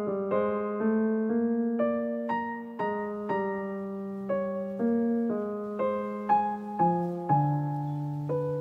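Background piano music: a gentle melody of single notes and chords, each struck and then fading, a new one about every half second.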